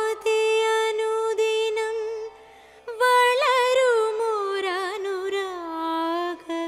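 A solo voice singing a Malayalam poem to a slow melody: a long held note, a short break about two and a half seconds in, then a phrase that sways up and down in pitch and settles on another long held note.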